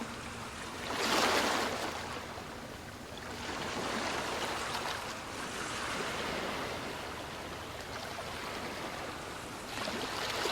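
Ocean waves washing onto a beach, a steady rush of surf that swells as each wave breaks, about a second in, again a few seconds later and once more near the end.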